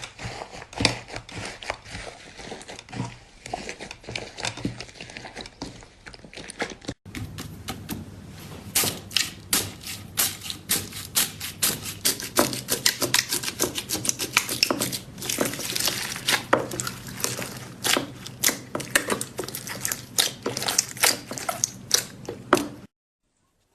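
Slime being squeezed and pressed by hand, giving a dense run of rapid sticky clicks and pops. A brief break about seven seconds in leads to a louder stretch, and the sound stops shortly before the end.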